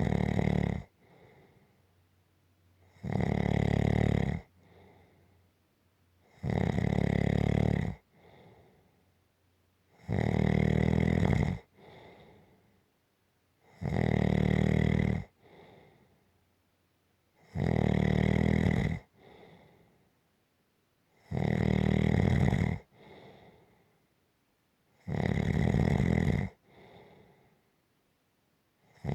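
Rhythmic snoring: a loud snore about every three and a half to four seconds, each lasting about a second and a half and followed by a much fainter short breath.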